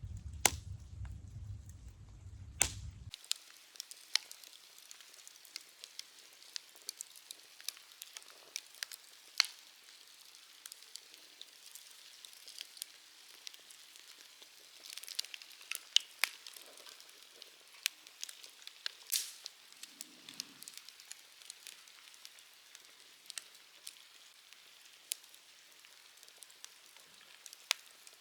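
Wood campfire crackling, with irregular sharp pops over a faint steady hiss. A low rumble sounds for the first three seconds and then cuts off suddenly.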